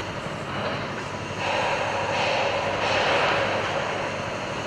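Steady rushing engine noise that grows louder about a second and a half in.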